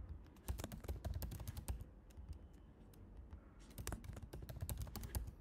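Typing on a computer keyboard: two quick runs of key clicks with a sparser pause of about two seconds between them.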